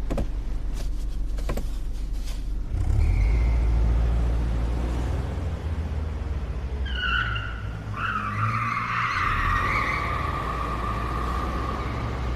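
A car's engine rumble that swells about three seconds in, with a tyre squeal starting suddenly about eight seconds in and slowly fading.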